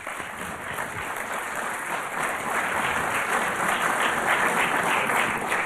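Audience applauding, breaking out all at once and growing louder over the next few seconds.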